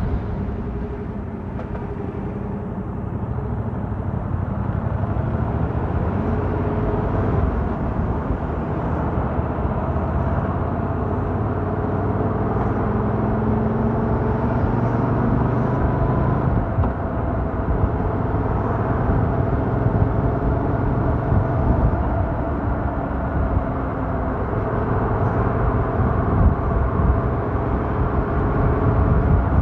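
Yamaha MT-07's 689 cc parallel-twin engine running on the move through a stock exhaust, its pitch rising and falling as the throttle opens and closes. It is picked up by a mic in the rider's jacket pocket, so it sounds muffled.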